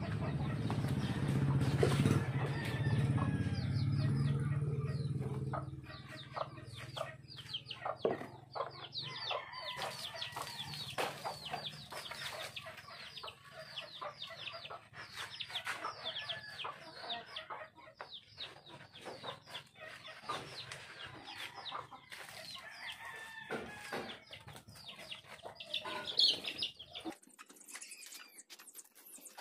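Chickens clucking with many quick, repeated calls. A low steady hum is also heard for the first six seconds or so and then fades out.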